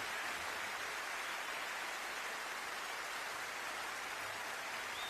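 Steady, even hiss like light rain, with no singing or music over it.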